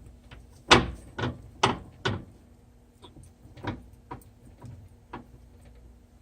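Ford 8.8 Trac-Lock limited-slip differential clunking as its gears are turned: four loud clunks about half a second apart, then four softer ones. The owner puts the noise down to the spider gears, one of which has about 1/8 inch of up-and-down play.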